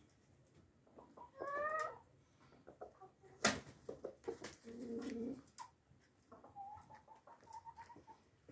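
Domestic chickens calling: a short rising squawk about a second and a half in, a low clucking call midway, and a thin drawn-out call near the end. A single sharp knock just before the midpoint is the loudest sound, with small scattered ticks throughout.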